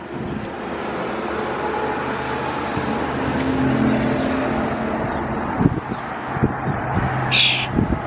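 Steady traffic noise from a nearby road, with a low hum underneath. Several soft knocks come in the second half, and there is one short high-pitched sound near the end.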